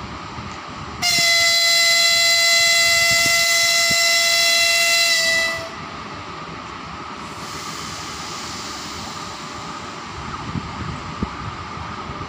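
Electric locomotive's whistle sounding one long, loud, high note for about four and a half seconds, starting about a second in and dipping slightly in pitch as it cuts off: a train's departure signal.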